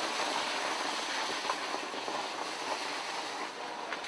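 Heavy hail falling: a dense, steady hiss and clatter of hailstones striking the road and cars, with a few sharper ticks.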